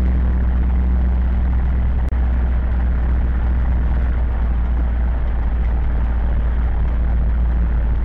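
Zetor 7011 tractor's four-cylinder diesel engine running steadily with a deep, even hum, heard from inside the cab as the tractor drives slowly.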